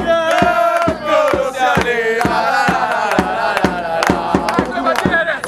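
Football supporters singing a chant together, backed by a steady drum beat of about two to three strikes a second.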